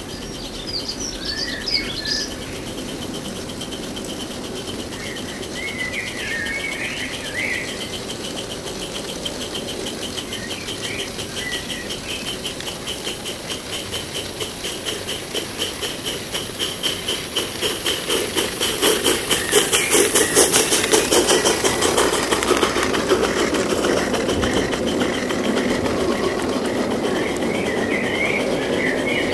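A 16 mm coal-fired Riverdale live-steam locomotive fitted with a Slo-mo device, running slowly and chuffing in an even beat that grows louder as it approaches and is loudest as it passes about two thirds of the way through, followed by the rolling of its coaches. Garden birds chirp now and then throughout.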